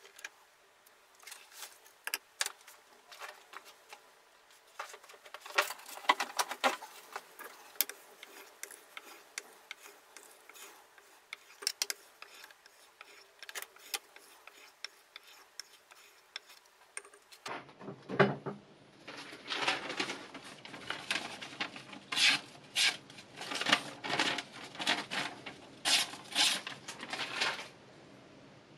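Abrasive sharpening plate rubbed back and forth along a knife edge held in a KMFS Rival two-sided sharpener: a quick run of short scraping strokes. About two-thirds of the way through, the strokes turn louder and fuller. They stop shortly before the end.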